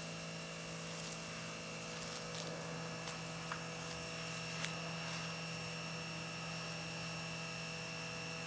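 A steady hum with a thin high whine over it, and a few faint clicks around the middle.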